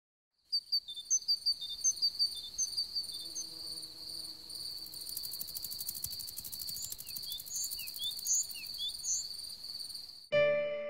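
Crickets trilling in grass: a steady high-pitched trill with repeated short chirps over it, joined by a fast pulsing buzz from about five seconds in. Piano music comes in just before the end.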